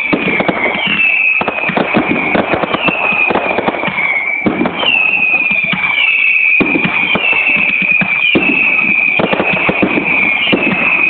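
Fireworks display: aerial shells bursting in a dense, continuous run of bangs and crackles. A high whistling tone with short chirps repeats about once a second throughout.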